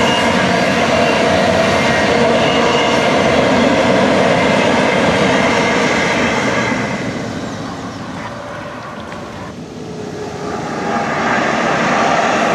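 Double-stack freight train rolling past on a curve: steady wheel-on-rail noise with several held ringing tones, fading after about six seconds as the last cars go by. From about ten seconds in, a passenger train's approach swells up again.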